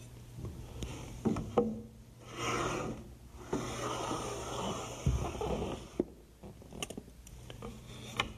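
A metal combination square clicks twice as it is set, then scrapes along a wooden door jamb in two strokes, the longer one about two and a half seconds, as a line is scribed down the jamb. A few light wooden taps and knocks follow near the end.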